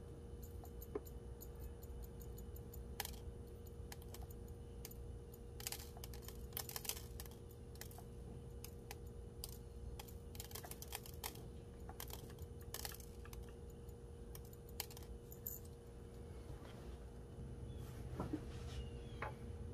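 Small crushed opal chips ticking and clicking as they are sprinkled and pressed by fingertip into a ring blank's inlay channel, with loose chips dropping into a plastic tray: irregular light clicks, busiest in the middle, over a faint steady hum.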